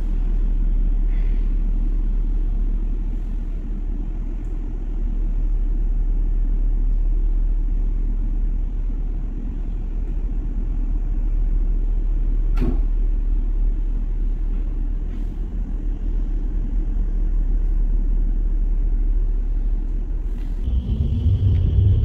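Cologne Stadtbahn light-rail car running, heard from inside the car: a steady low rumble, with one sharp click about halfway through. Near the end the rumble grows louder and a steady high whine sets in.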